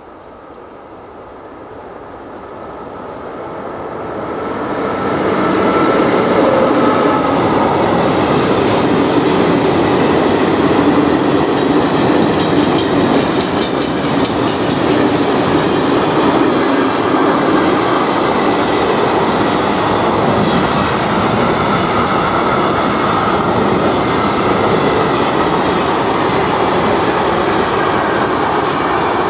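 A freight train approaching and then passing close by: a line of open freight wagons rolling past, wheels running on the rails. The sound grows louder over the first five or six seconds, then holds steady as the wagons go by.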